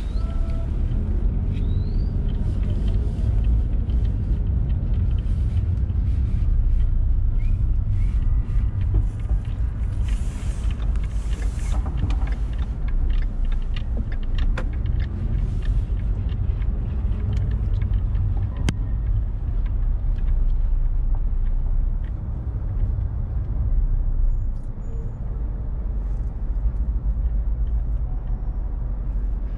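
Car driving through city traffic: a steady low rumble of engine and road noise, with scattered clicks and knocks. Two short hisses come about a third of the way in.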